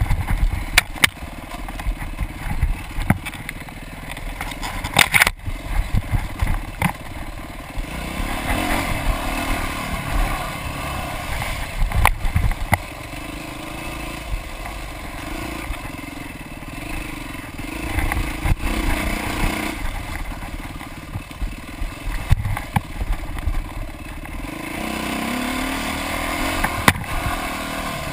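Off-road motorcycle engine revving up and down with the throttle as it rides a rough dirt trail, with frequent sharp clattering knocks from the bike over bumps and ruts.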